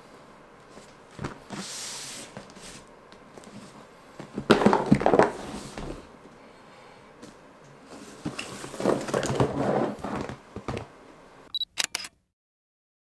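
Cardboard box of a gel ball blaster handled and turned over on a tabletop: cardboard scraping and knocks, loudest about four and a half seconds in and again around nine seconds. A few sharp clicks near the end, then the sound cuts off to silence.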